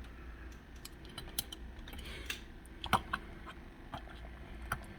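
Light, irregular clicks and taps of a small diecast model car being handled, with one sharper click about three seconds in.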